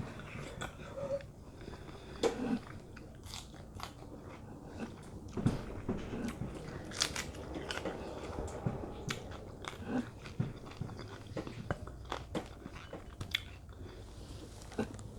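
A person chewing food close to the microphone, with irregular sharp mouth clicks and smacks.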